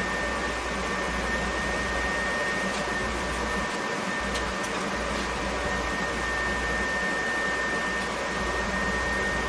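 Electric fan or blower running steadily: an even rushing noise with a constant high whine and a low hum.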